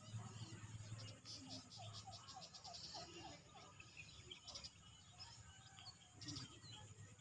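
Faint insects chirping in short pulsing bursts, with a bird giving a quick series of short falling notes during the first few seconds, over a low rumble.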